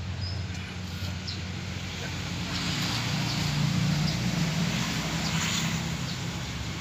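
A low engine drone that swells about two and a half seconds in and eases off near the end, with a few faint high bird chirps.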